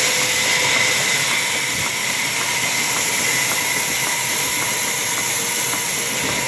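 Large sawmill band saw running and cutting through a green log: a loud, steady hiss with a faint tick repeating about twice a second.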